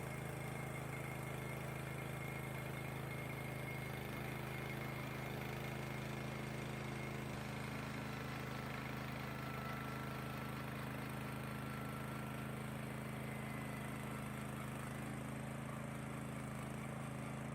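Engine of a Timbery band sawmill running at a steady speed, with an even hum that does not rise or fall, plus a faint high whine above it.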